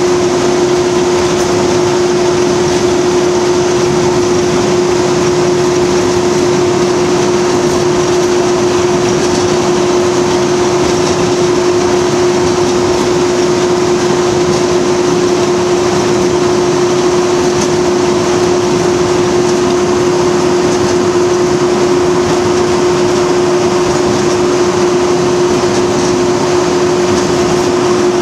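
BR Class 37 diesel-electric locomotive heard from its cab while under way: steady engine and running noise with a strong, steady tone over it.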